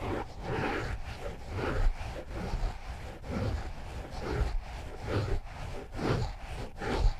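Microphone scratching for ASMR: the microphone is scratched and rubbed in irregular scraping strokes, about one or two a second, with a low rumble under each stroke.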